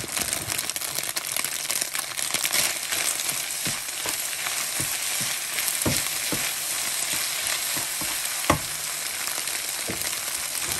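Egg noodles and scrambled egg sizzling in a nonstick frying pan while a plastic spoon stirs them, scraping and knocking against the pan. A sharp knock about eight and a half seconds in is the loudest sound.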